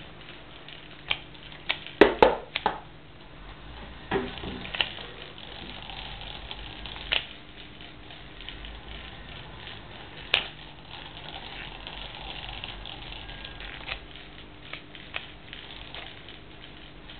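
Small electric motor of a Meccano model snow blower running, with faint steady whirring and the metal strips and plastic parts clicking and knocking. A quick cluster of sharp knocks about two seconds in is the loudest, and single clicks follow every few seconds.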